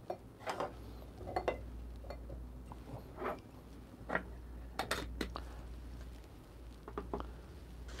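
Scattered light clinks and taps of stainless steel and glass coffee-brewing gear being handled and set down on a wooden desk, about half a dozen separate small knocks.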